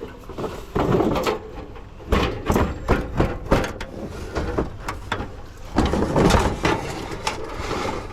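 Irregular knocks, clatter and scraping as a coffee maker's housing is forced open for scrap.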